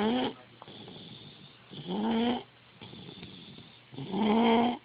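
Snoring, one snore about every two seconds, each rising in pitch; the snore near the end is the loudest.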